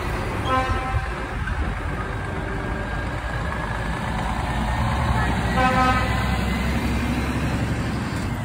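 Heavy truck horn sounded in two short blasts, one about half a second in and one about halfway, over the steady low running of heavy truck engines pulling away.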